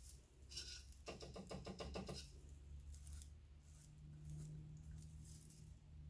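Faint patter of a stiff, home-made straw hakeme brush dabbed and swept through wet slip against a leather-hard clay bowl, with a quick run of about ten taps a second lasting about a second, then only a few light scratchy ticks.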